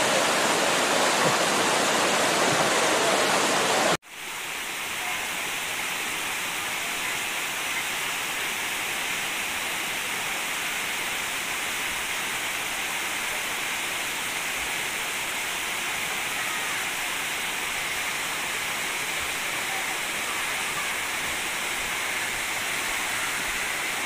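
Dzhur-Dzhur waterfall: a steady rush of falling water. It cuts out for an instant about four seconds in and comes back a little quieter.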